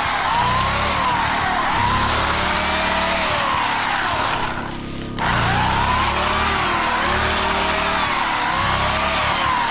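Small gas engine of a DR walk-behind string trimmer running hard, its pitch sagging and climbing back every second or so as it works through overgrowth. Briefly quieter about halfway through.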